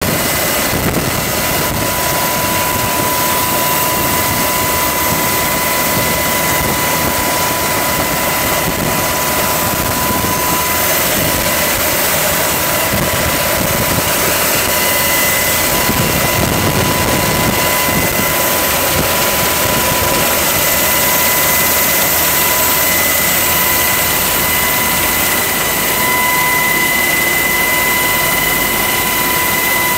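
Twin-turbine UH-60 Black Hawk helicopter hovering, heard from inside the cabin with the side door open: a loud, steady rush of rotor and engine noise with a steady high-pitched whine over it.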